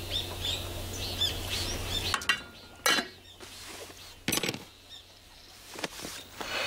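Small birds chirping, then several sharp metallic clinks and knocks from about two seconds in as a stainless pot, its lid and a portable gas stove are handled.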